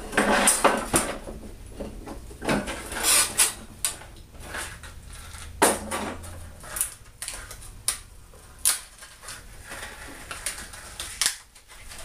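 Irregular knocks and clinks of wooden parts and metal hardware being handled and set down on a workbench, a few louder sharp knocks among lighter clicks.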